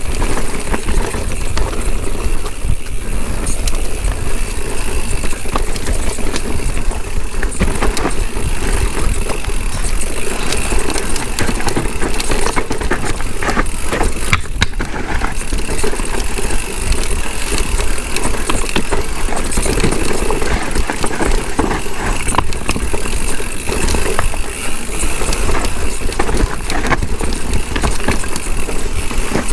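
Mountain bike riding fast down a downhill dirt trail: a steady, loud rush of wind and tyre noise, with frequent rattles and knocks from the bike.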